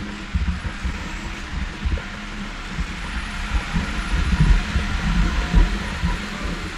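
Removu R1 handheld gimbal's motors humming steadily as they work to hold the camera level during walking, with irregular low thumps from the footsteps. City street traffic noise sits underneath.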